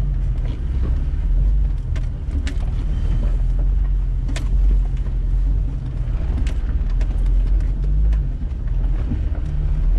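Off-road vehicle's engine running at low, steady revs while crawling over a rocky trail, with scattered clicks and knocks from rocks under the tyres and the body.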